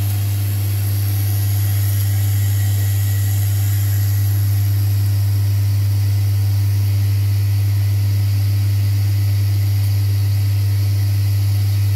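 Vibratory bowl feeder and linear vibratory drive running, giving a loud, steady low hum with a faint hiss of plastic U-shaped parts moving along the tracks.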